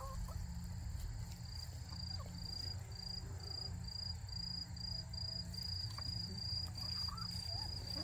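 An insect, cricket-like, chirping in an even high-pitched pulse about two to three times a second, starting a second or so in and carrying on steadily.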